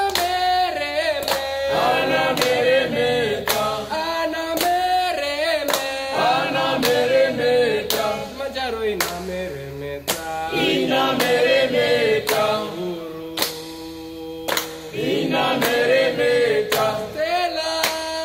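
A choir singing a Swahili song, with a steady percussive beat under the voices.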